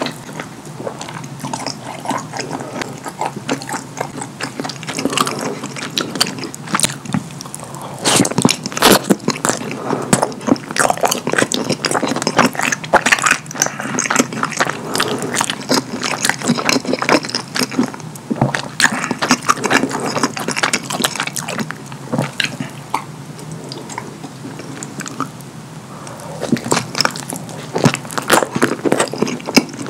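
Close-miked eating sounds of a person biting into and chewing a chili cheese hot dog: a dense, irregular run of mouth clicks, louder about eight to ten seconds in and again near the end.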